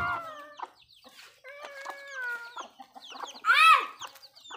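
Backyard chickens calling and clucking, with many short high peeps from young birds throughout. One loud, arching call rings out about three and a half seconds in.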